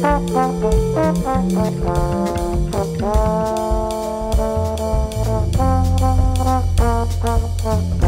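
A live band jamming: a trombone plays a melodic phrase over drum kit, electric bass and keyboard, with one long held note about three seconds in, and a deep bass note taking over near the end.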